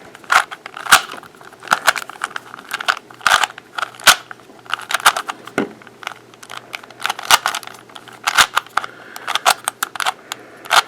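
A 3x3 Rubik's cube being scrambled by hand: its plastic layers are turned quickly, giving an irregular run of sharp clicks and clacks, several a second.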